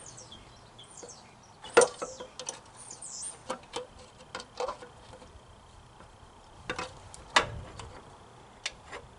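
Scattered metal clicks and clinks of a hand wrench working a small bolt on a mower's governor linkage. They come at uneven spacing, two of them louder, about two seconds in and near the end.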